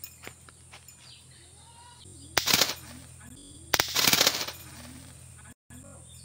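Homemade wooden six-round pistol being fired: a sharp crack about two and a half seconds in, then a second crack under a second later that trails into a short rattle. The shot fails, which the shooter puts down to the bullet being jammed in too tightly.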